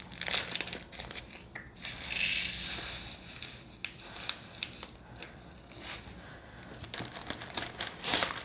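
Small plastic bags of diamond painting drills crinkling as they are handled, with scattered small clicks and a longer rustle about two seconds in.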